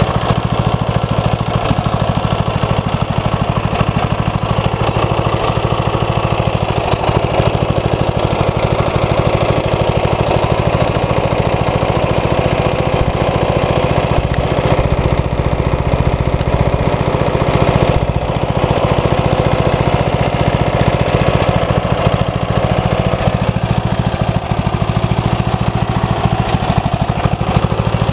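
Briggs & Stratton 9 HP single-cylinder vertical-shaft engine on a Snapper riding mower, running steadily at an even speed.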